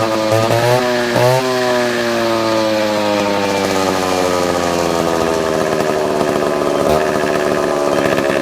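Mikata concrete cutting saw running continuously at high speed, with a brief rise in pitch about a second in and then a slow, steady fall in pitch.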